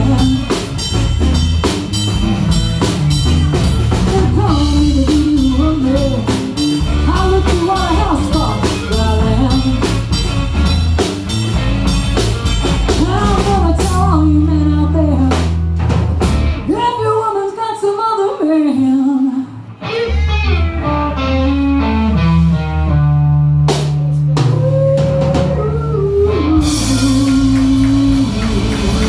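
Live blues band playing: a woman singing into a microphone over electric guitar, electric bass and drum kit. About two-thirds of the way through, the bass and drums drop out for a few seconds, then come back in, with cymbals washing in near the end.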